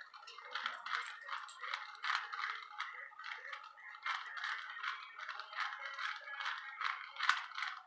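Plastic Rubik's cube being turned by hand: a quick, irregular run of clicks and rattles as the layers twist.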